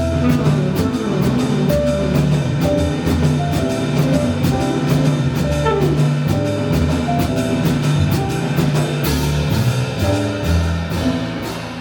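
Live jazz band playing, with drum-kit cymbals struck on a steady beat over walking bass and sustained melody notes.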